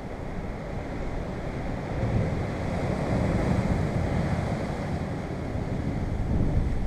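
Sea surf breaking and washing over coastal rocks, with wind buffeting the microphone; the surge swells about two seconds in and again near the end.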